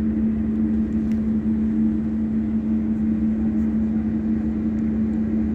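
A steady, even machine hum that does not change.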